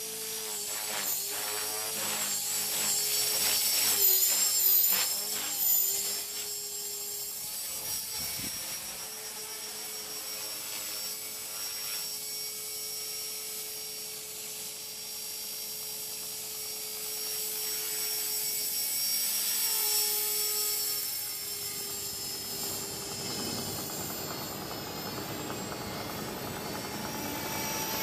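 Align T-Rex 450 Pro electric RC helicopter in flight: a steady motor and gear whine with rotor buzz, its pitch wavering as it manoeuvres. It swells louder about four seconds in and again about twenty seconds in.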